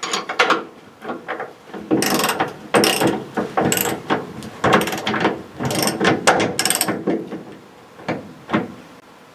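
Ratchet wrench clicking in a run of short back-and-forth strokes, tightening a handbrake mounting bolt until it is secure.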